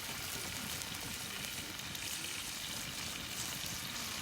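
Food sizzling steadily in a hot pan, an even hiss with no breaks.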